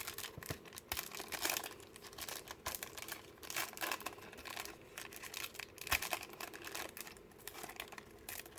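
Wrapper of a Shopkins trading card pack crinkling and tearing as it is opened and handled, an irregular run of sharp crackles and rustles.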